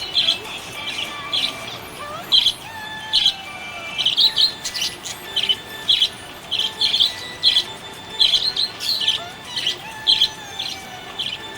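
Pet budgerigars chirping: short, sharp, high chirps repeating irregularly about twice a second, with fainter drawn-out whistles beneath.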